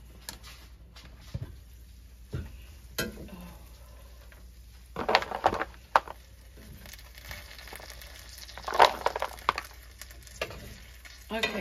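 A few last popcorn kernels popping now and then under the lid of a cast-iron skillet, then the glass lid clattering off and a metal spoon scraping and stirring caramel popcorn in the pan, in two louder spells about five and nine seconds in.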